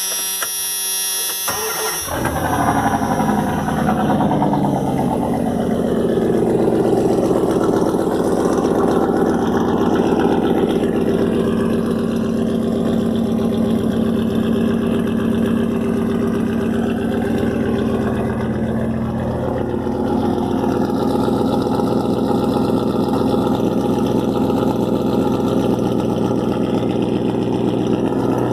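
1994 Dodge Ram 1500's 5.2-liter V8 cranked over on the starter, catching about two seconds in, its revs falling over the next few seconds into a steady idle. It runs through an open straight-pipe exhaust with no catalytic converter and no mufflers, and is loud.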